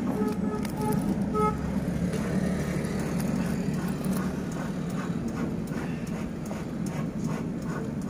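Steady low background rumble with scattered light clicks and taps of the metal ignition lock housing being turned in the hands; three short, even-pitched beeps sound in the first second and a half.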